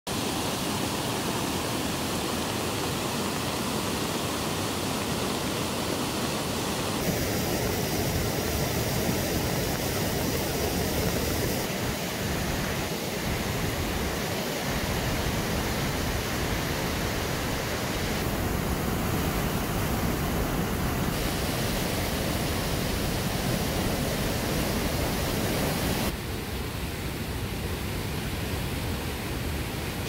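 Rain-swollen mountain stream in flood, white water rushing and churning over rock in a steady, dense rush. The rush changes in tone abruptly several times, becoming duller for the last few seconds.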